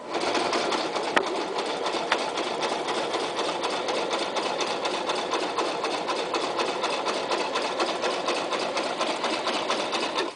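Toyota Super Jeans J34 sewing machine running at a steady speed, stitching through a thick stack of leather layers. It stops abruptly near the end.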